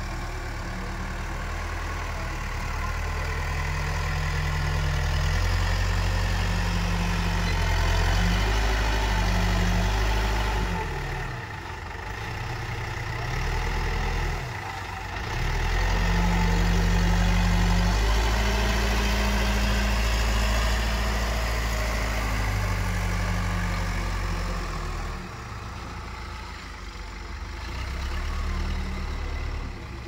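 Backhoe loader's diesel engine running under changing throttle while the machine drives and works, its revs rising and falling; the revs dip and recover twice about halfway through and settle lower near the end.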